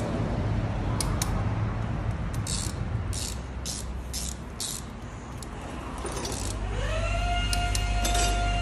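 Metal clicks and clinks of a socket wrench and loose bolts on an engine's cylinder head, over a steady low hum. About two-thirds in, a whine rises in pitch and then holds steady.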